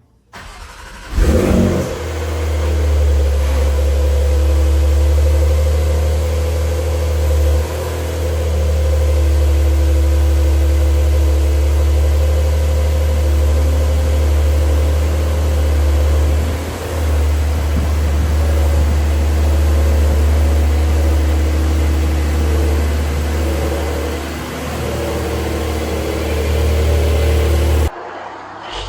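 Porsche 911 flat-six starting about a second in, catching with a brief flare, then settling into a steady loud idle with a deep, even drone.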